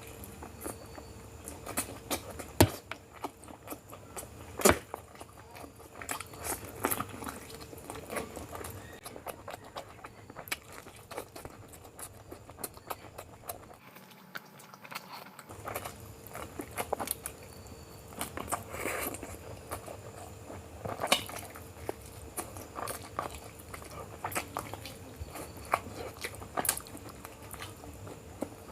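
Close-miked eating sounds of a person chewing spicy biryani, with irregular lip smacks, clicks and crunches.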